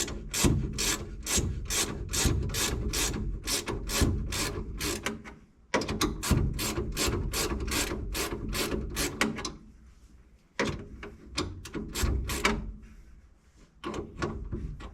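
Hand ratchet wrench clicking as it turns a seat bolt, in quick even runs of about four clicks a second, with a short break about halfway through and a few scattered clicks later on.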